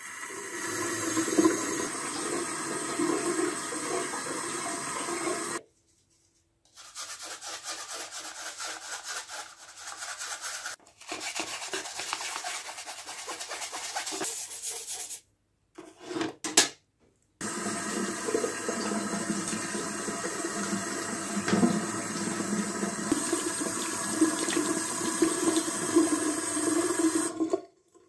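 Tap water running into a sink over a dishwasher's mesh filter, with the rubbing and scrubbing of the filter by hand. The sound breaks off abruptly a few times, and the middle stretches are quieter, with mostly scratchy rubbing.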